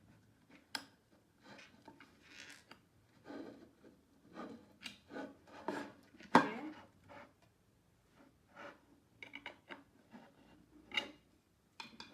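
Engineered-wood drawer panels being handled and fitted together by hand: irregular rubbing, scraping and light knocks, with one sharper knock about six seconds in.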